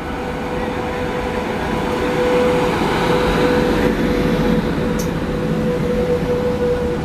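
The Yesvantpur–Indore Express running alongside the platform, its rumble growing louder as it comes in. A steady high tone carries through, and there is one sharp click about five seconds in.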